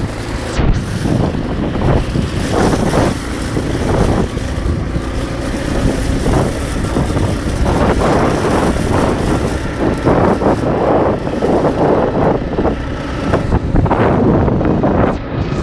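ATV engine running and revving unevenly, with wind buffeting the microphone.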